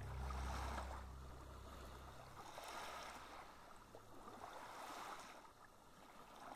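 Small sea waves washing gently onto a sandy beach, swelling and fading about every two seconds. A low drone fades out about two seconds in.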